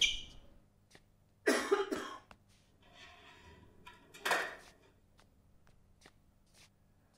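Two coughs in a hushed room, about a second and a half in and again past the four-second mark, with faint small knocks and clicks between them.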